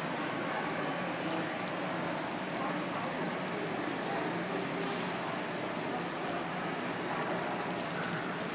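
Restaurant dining-room background noise: a steady hubbub of indistinct diners' chatter and general clatter.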